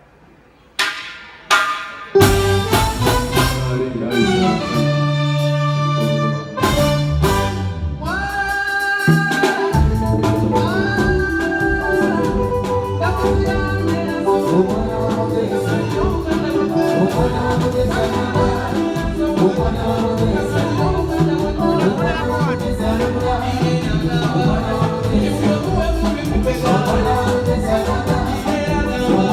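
Live band starting a song: a few separate struck chords about a second in, then a held, pitched lead melody over a sustained low note. From about ten seconds in the full band joins with drums and bass in a steady groove.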